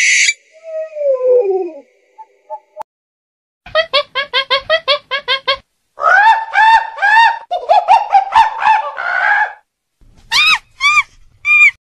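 An owl's falling call about a second in, then monkeys calling: a rapid run of chattering calls at about five a second, followed by longer rising-and-falling cries and a few short high calls near the end.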